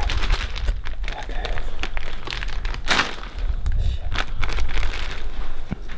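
Clear plastic bag crinkling and rustling as it is pulled off a camera in handfuls, with a low rumble underneath.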